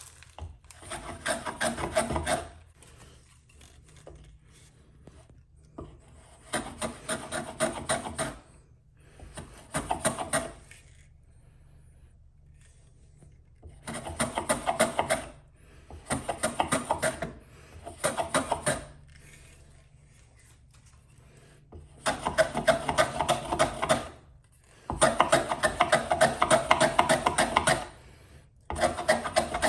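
A hand tool cutting a white pine batten in runs of quick rasping strokes, about nine bursts of one to three seconds each with short pauses between.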